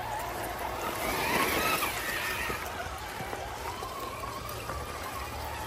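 A 1/10-scale RC rock crawler's small electric motor and gearbox whining as it climbs, the pitch wavering up and down with the throttle. The whine is louder about one to two seconds in, mixed with loose rock and dirt scrabbling under the tyres.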